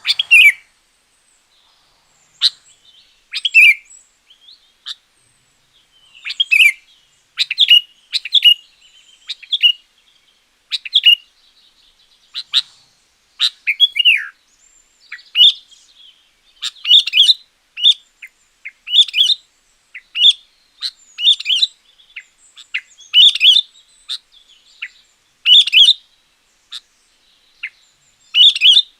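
Sooty-headed bulbul (kutilang) singing loudly in short, bubbly phrases repeated every second or two, with one longer falling slur about halfway through.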